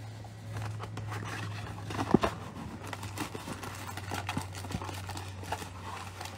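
Cardboard trading-card box being torn open and its inner sleeve of card packs slid out: irregular rustling and scraping, with a sharp snap about two seconds in. A low steady hum runs underneath.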